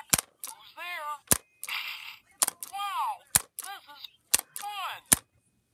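Plastic Ernie toy being worked by hand, giving sharp clicks that alternate with short squeaky sounds rising and falling in pitch, about one of each a second, with a short hiss near the middle.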